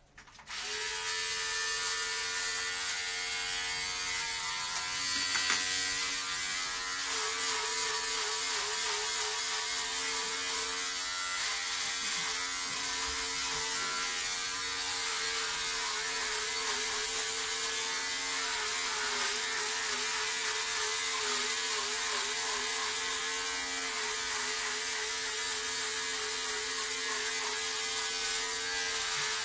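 Electric shaver buzzing steadily as it is run over a man's head, switched on about half a second in; its pitch wobbles now and then.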